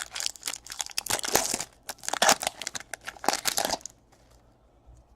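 Baseball card pack wrapper being torn open and crinkled: a dense crackling that stops about four seconds in.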